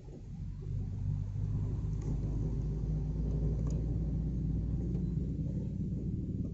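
Low, steady engine rumble of motor vehicles crawling in a traffic jam, swelling about half a second in and then holding level.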